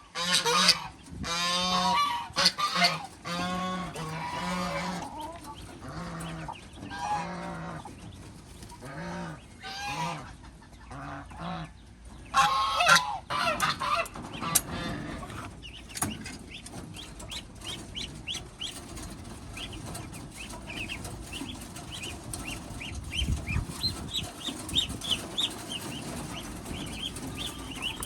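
Farm poultry calling loudly in repeated, drawn-out calls for about the first half. Then many rapid, high, short peeps, like chicks, carry on over a general flock noise.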